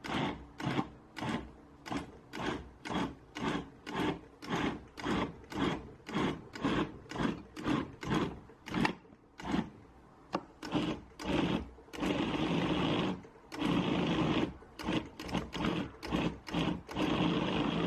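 Blender motor pulsing in short bursts, about two a second, mixing buttermilk into biscuit dough, then running in longer spells of about a second each near the end.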